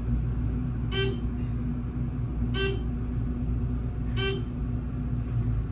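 Building fire alarm sounding three short, sharp blasts, about a second and a half apart, over a steady low hum.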